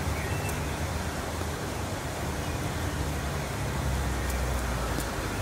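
Steady outdoor city background noise: a low rumble under an even hiss, with a few faint clicks.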